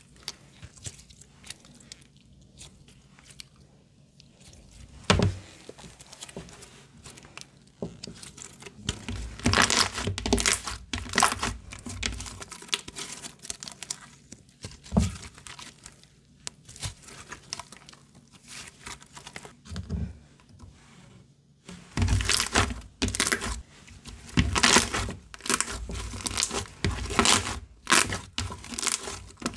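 Soft pale green slime being squished, stretched and pressed by hand, giving crackly clicks and pops as it pulls and folds. It is sparse at first, with one sharp snap about five seconds in, and the crackling becomes dense and louder from about nine seconds on, with a brief lull before it picks up again near the end.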